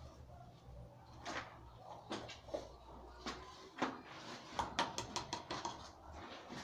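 Irregular light knocks and clatter of objects being handled, thickest about halfway through.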